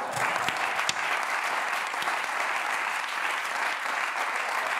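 Studio audience applauding, starting at once and holding steady.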